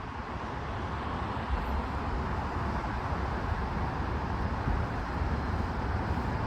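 Road traffic at a busy city intersection: a steady rumble of passing and idling vehicles that slowly grows louder.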